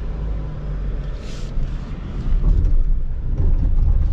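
2022 Jeep Grand Cherokee 4xe climbing a loose off-road hill with its engine running: a low, steady rumble of engine and tyres under load that grows louder about two seconds in.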